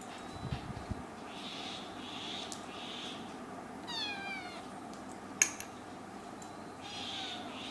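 Kitten meowing: one clear meow falling in pitch about four seconds in, and a fainter one near the end. A single sharp click comes between them.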